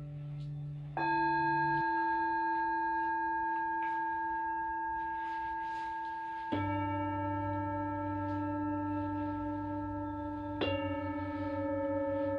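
Singing bowls struck one after another, three strikes about four to five seconds apart. Each is left ringing with long, steady overlapping tones, and the ring after the last strike wavers.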